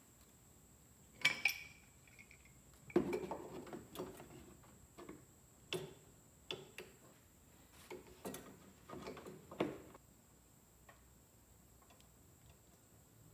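Metal hand tools clinking and knocking as a pipe wrench is fitted around a Kohler engine's spin-on oil filter: a series of irregular sharp clicks and clanks, with a louder pair about a second in. The clicks thin out after about ten seconds.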